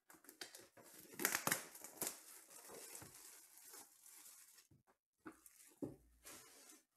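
Clear plastic shrink wrap being torn off a sealed trading-card box and crumpled in the hands, crackling and crinkling, loudest about a second in. After a short pause near five seconds it crinkles again, with a soft knock near six seconds.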